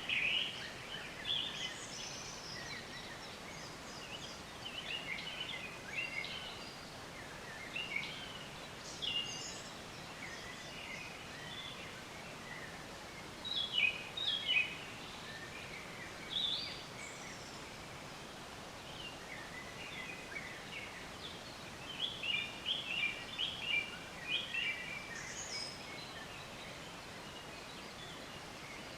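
Several songbirds chirping and trilling in short phrases, some in quick runs, over a steady background hiss.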